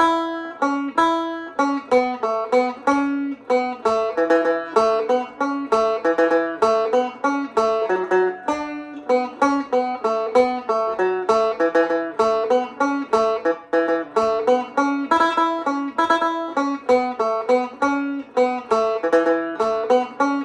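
Solo Irish tenor banjo playing a jig in A major, a steady stream of quick plucked notes in the lilting jig rhythm.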